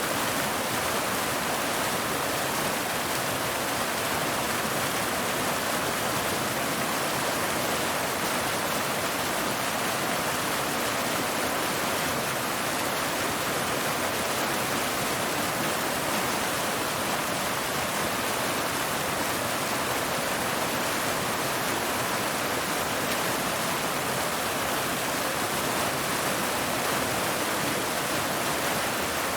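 Waterfall cascading over rocks: a steady, unbroken rush of falling and splashing water.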